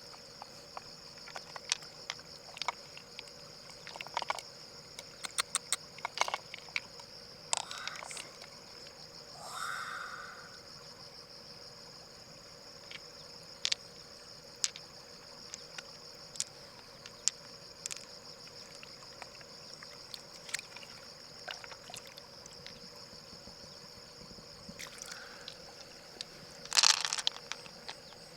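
Steady high-pitched insect drone outdoors, with scattered sharp clicks and knocks throughout and a louder cluster of knocks near the end.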